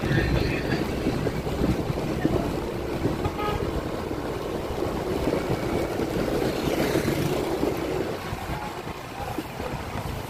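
Vehicle driving along a town street: a steady engine and road rumble, easing slightly near the end.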